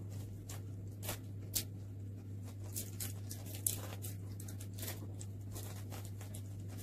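Light, irregular plastic clicks and crinkles from a small plastic toy egg capsule and its wrapper being handled, over a steady low hum.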